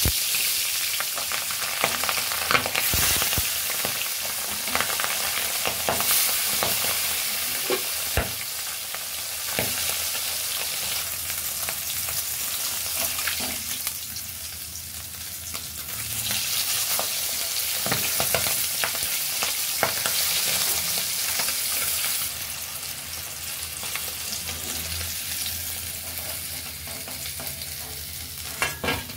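Small tangra fish sizzling steadily as they fry in hot oil in a metal wok on high heat. There are scattered scrapes and clicks from a metal spatula turning them in the pan.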